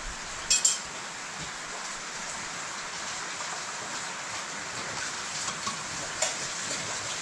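A steady hiss like falling rain, with one short, bright clink about half a second in and a faint tick near the end.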